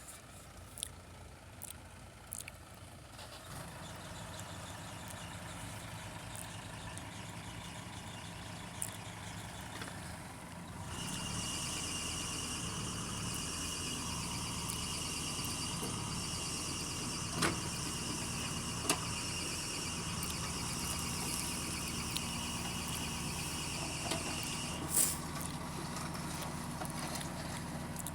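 A heavy diesel engine, from the JCB 3DX backhoe loader at work, runs steadily. About eleven seconds in a steady high whine joins it, and it cuts off suddenly near the end. A few sharp knocks are scattered through.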